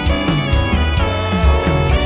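Live praise band playing with a drum kit, bass and sustained chords, keeping a steady beat.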